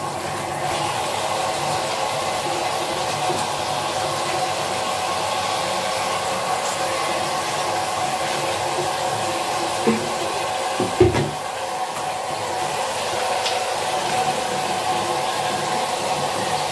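Handheld shower running steadily onto a tiled floor during a dog's bath, with a short low bump about ten and eleven seconds in.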